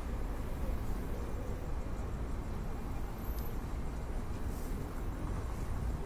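Steady low rumble of city traffic, with a faint high insect buzz that swells briefly about halfway through.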